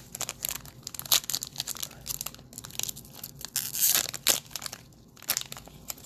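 Crinkling and tearing of trading-card packaging being handled, in irregular crackles, with a louder rip about four seconds in.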